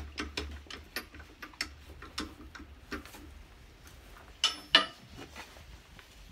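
Wood lathe's jaw chuck being tightened with its T-handle chuck key: a run of light metallic clicks, about two or three a second, with two louder clacks about four and a half seconds in.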